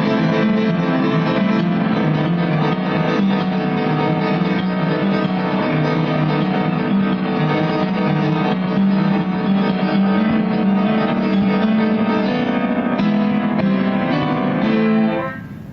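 Instrumental outro of a live song, keyboard and guitar chords over a bass line with no singing, that dies away near the end.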